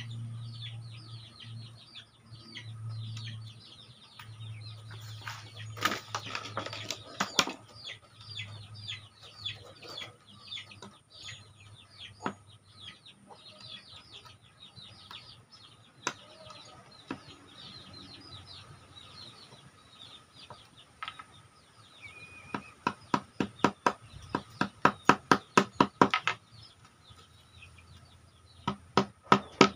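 Young chicks peeping continually in short high chirps. In the second half a hammer taps on the wooden board in a quick run of sharp strikes, about three a second, with a few more near the end.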